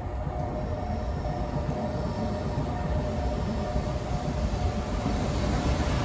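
An approaching freight train hauled by an EF510 electric locomotive: a rumble that grows steadily louder as it nears, over the steady repeating ring of a level-crossing warning bell.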